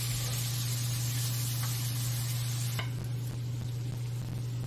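Sliced meat sizzling as it stir-fries in a pan, stirred with chopsticks. The sizzle drops away about three seconds in, leaving a steady low hum.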